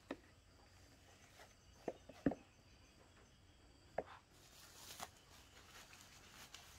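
Faint, with a few brief taps and rustles as handfuls of coconut coir are pressed into a terracotta pot around a papaya cutting; two taps come close together about two seconds in.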